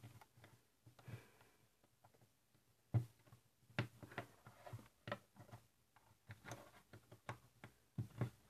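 Plastic LEGO Technic parts being handled and pressed together by hand: irregular light clicks and taps, the sharpest about three seconds in.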